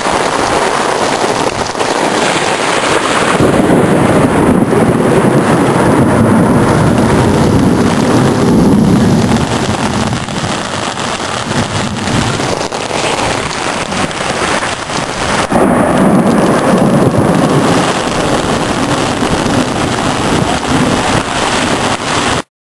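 Heavy rain pouring down in a thunderstorm, with thunder rumbling beneath it and swelling twice. The sound cuts off abruptly near the end.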